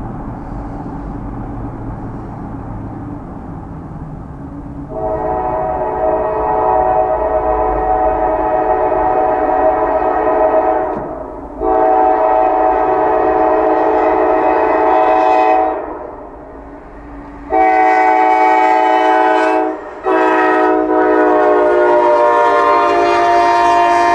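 Norfolk Southern freight locomotive's multi-note air horn sounding the grade-crossing signal: two long blasts, a short one, then a long one, starting about five seconds in. Steady car road noise comes before the first blast.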